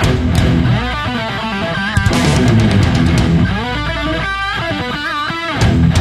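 Loud guitar-led music.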